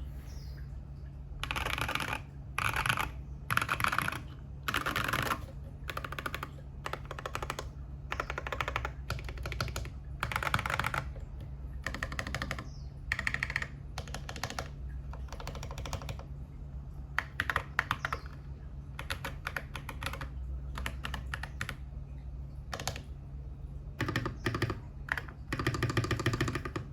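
Mechanical keyboard with MMD Holy Panda V3 tactile switches being typed on, in quick runs of keystrokes with short pauses between.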